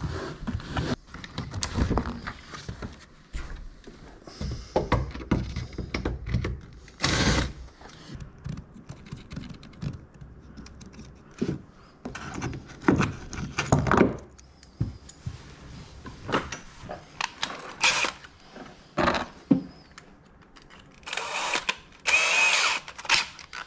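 Scattered handling noises, rustling, taps and small clicks, as a fitting is tried in a freshly cut hole in fiberglass. Near the end a cordless drill runs in two short bursts of about a second each.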